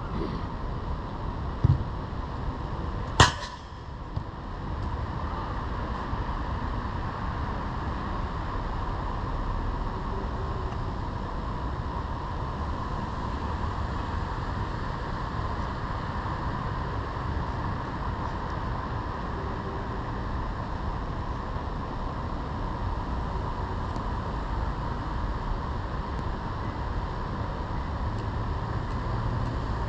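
Steady rushing outdoor noise, broken near the start by a dull knock and, about a second and a half later, a single sharp crack.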